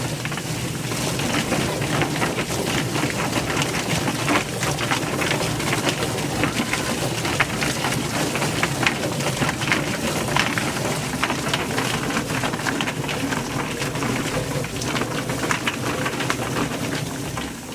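Steady splattering, water-like noise with many small knocks running through it; it cuts off suddenly at the end.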